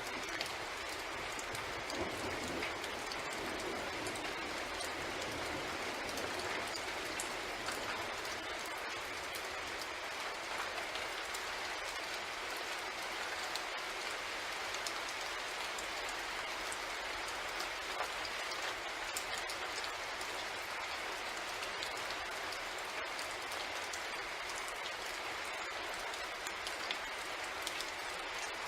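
Steady rain with scattered light ticks of drops, mixed with a train's even running, in an unchanging night-train ambience.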